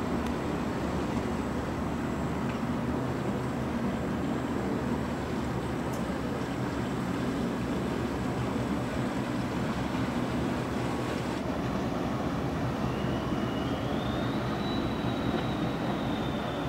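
Inland motor tanker's diesel engine running as the vessel passes, a steady low drone with water noise.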